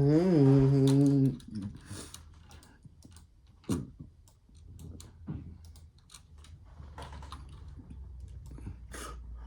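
Scattered, irregular clicks of a computer keyboard and mouse, after a held pitched vocal note that stops about a second in; a low steady hum sits underneath.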